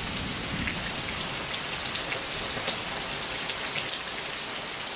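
Steady rain falling in a thunderstorm: an even hiss with faint scattered drop ticks.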